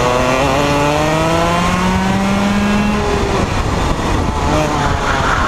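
Rotax Max 125 cc two-stroke kart engine heard from the kart itself, revving up through the gears-free single-speed climb, its note rising for about three seconds under full throttle. The note breaks off about three seconds in as the throttle is lifted for the corner, and it comes back strongly near the end.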